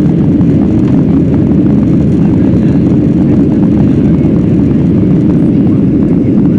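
Steady, loud noise of an airliner in flight heard from inside the passenger cabin: engine and airflow noise, low and unbroken.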